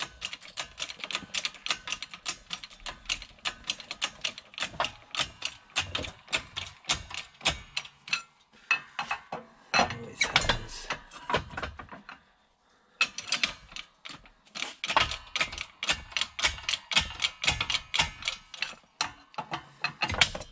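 Hydraulic bottle jack on a shop press being pumped with its handle, clicking rapidly several times a second with a short pause about midway, as it presses a main bearing into an aluminium crankcase.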